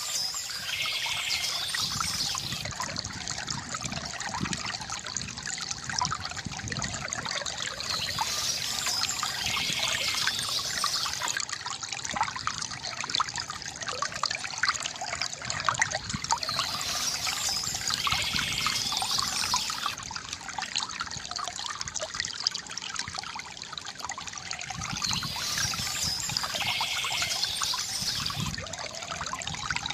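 River water gurgling and trickling steadily, with a brighter, hissier patch that comes back about every eight or nine seconds.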